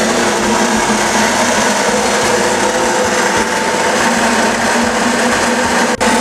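Weeke Optimat BHC-350 CNC machining center running a program on a wood cabinet panel: a steady mechanical whine and rush of spindle motors and cutting, with a brief sharp break near the end.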